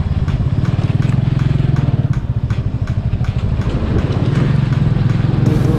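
Motorcycle engine running steadily while riding, with a rapid even firing pulse.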